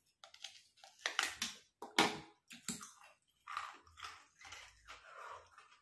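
Ice being bitten and crunched between the teeth: a run of irregular crisp crunches, loudest about two seconds in, then softer chewing.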